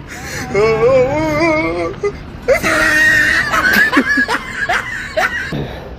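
A voice wailing in a wavering, crying tone for a couple of seconds, then a sudden loud, harsh cry with high squeals, trailing off in short falling whimpers.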